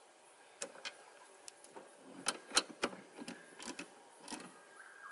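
Ratchet wrench clicking in short, irregular runs as the catch can bracket's 13 mm mounting bolts are tightened into their nutserts.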